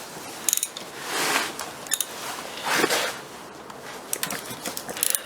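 Hand ratchet being worked on a pit bike's flywheel bolt: short runs of quick clicks with metal handling noise and a couple of longer scraping swells between them, as the bolt is tightened against a screwdriver wedged behind the flywheel.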